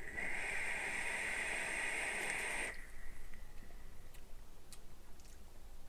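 Steady hiss of a long draw on a sub-ohm e-cigarette (0.35 ohm coil) as the coil fires and air rushes through the atomizer, lasting nearly three seconds and cutting off sharply.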